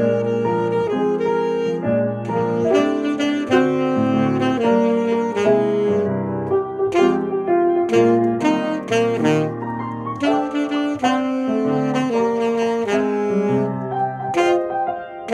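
Saxophone playing a melody of sustained notes over grand piano accompaniment, a continuous duet.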